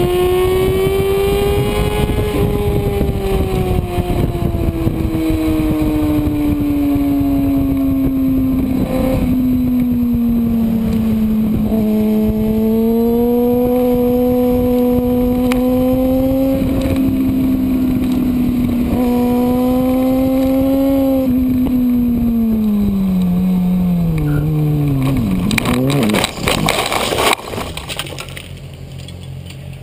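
Kawasaki ZX-6R inline-four sport bike engine running hard under heavy wind rush, its pitch rising and falling with the throttle and gear changes. Near the end the revs fall away, then a short burst of scraping and impacts as the bike crashes down onto trackside gravel, after which it is much quieter.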